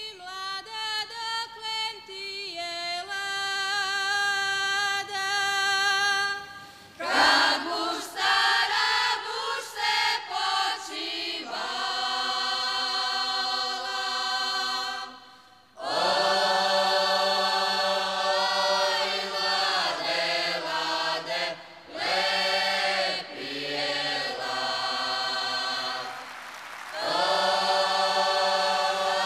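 Unaccompanied women's folk singing group singing a traditional Croatian song in several voices. A single voice carries the line at first, and the full group joins about seven seconds in.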